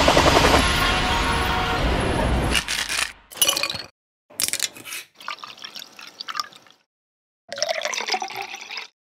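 A loud, dense intro sound effect that cuts off about two and a half seconds in, then short cut-together bursts of cocktail-making sounds: liquid poured between metal mixing tins and strained from a mixing glass into a glass, with silent gaps between the clips.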